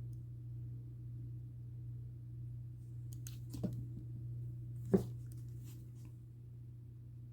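Steady low hum of weather radio dead air between announcements. Two short clicks cut through it, one about three and a half seconds in and a sharper, louder one about five seconds in.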